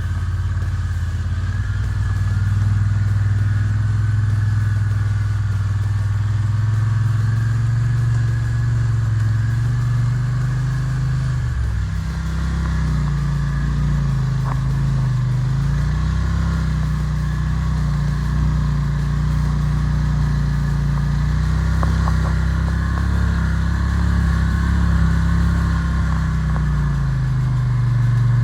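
ATV engine running while riding, its pitch rising and falling with the throttle: it steps up about twelve seconds in and dips briefly twice after that.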